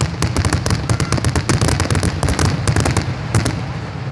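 Fireworks going off in a rapid, irregular string of sharp pops and cracks, many a second, thinning out near the end.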